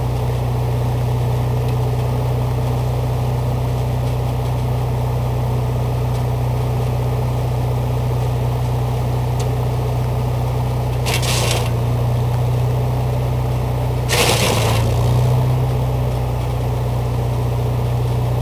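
Fitchburg wood chipper driven by a Wisconsin VG4D air-cooled V4 engine, running steadily, with two short crunching bursts in the second half as brush is fed through the blades.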